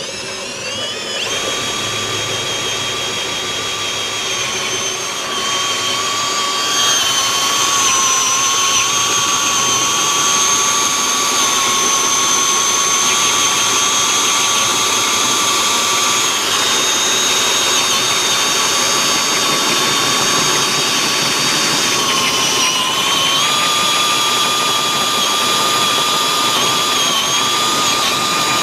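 Cordless hand drill driving a 1-inch carbide annular cutter through solid cast iron. The motor spins up at the start and then runs with a steady high whine, its pitch dipping briefly about three-quarters of the way through before recovering.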